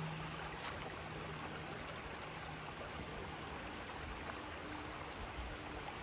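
Steady rushing of a forest stream, with a faint low hum under it.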